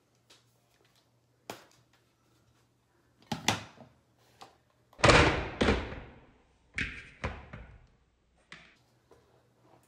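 Objects being handled and set down on a counter: a series of knocks and clatters, the loudest thuds about five and seven seconds in.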